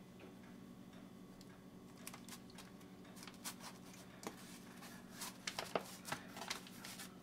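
Disposable aluminium foil pan crinkling and clicking as hands press and piece pie-crust dough into it, the crackles starting about two seconds in and busiest near the end, over a faint steady hum.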